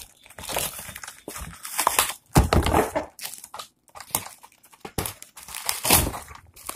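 Plastic courier mailer crinkling and rustling in irregular bursts as it is cut open with scissors and pulled apart, loudest about two and a half seconds in and again near six seconds.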